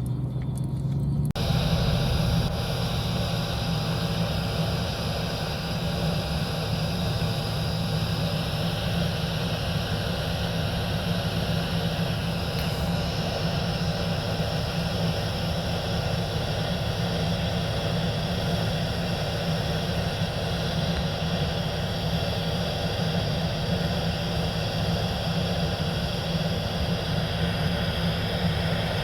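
John Deere S680 combine harvester running steadily under load, a constant engine drone with a steady high whine from the machinery. About a second in, the sound jumps to a louder, fuller level.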